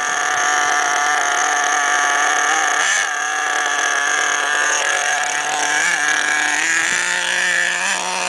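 Radio-controlled monster truck's small engine held at a steady high-pitched whine, its pitch shifting slightly near the end.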